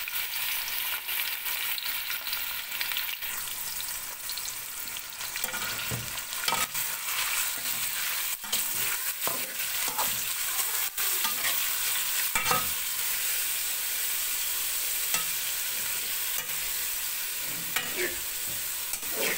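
Chicken cubes sizzling steadily as they fry in ghee in a metal pot, stirred with a slotted spatula that scrapes and knocks against the pot now and then. The chicken is being fried until its own water cooks off.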